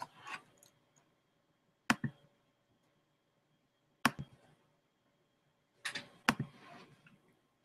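Three sharp clicks from a computer's pointing device, about two seconds apart, with soft rustling around the last one.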